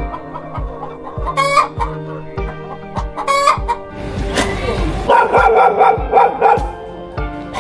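Chickens clucking, then a rooster crowing in one long call from about five seconds in, over background music with a steady beat.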